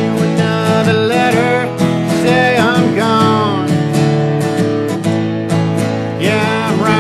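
Country band playing a song live, with strummed acoustic guitar.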